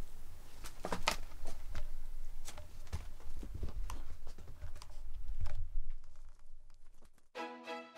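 A cat playing with a wand toy on a carpet: irregular soft taps, thumps and rustles of paws and toy, fading out about two-thirds of the way in. Background music starts just before the end.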